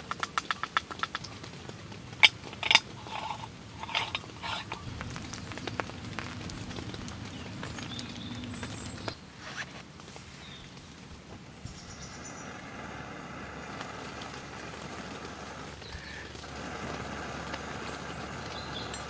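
Camp coffee-making: rapid light clicking that stops in the first second, then a few sharp knocks and taps about two to five seconds in. In the second half, a steady soft hiss from a stainless moka pot heating on a small wood fire.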